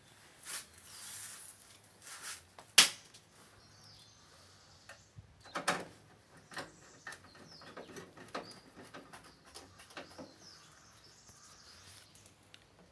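Scattered clicks and knocks, with one sharp knock about three seconds in and another about halfway through.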